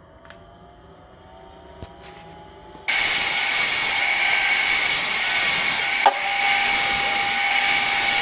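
A faint motor hum rising in pitch, then about three seconds in a power saw cutting wood starts abruptly: a loud, steady hiss with a high whine.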